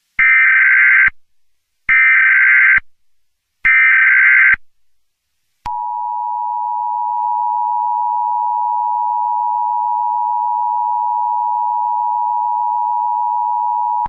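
Emergency Alert System header: three bursts of SAME digital data tones, each about a second long and a second apart. They are followed from about six seconds in by the EAS attention signal, a steady two-tone beep (853 and 960 Hz) that marks the start of an emergency alert.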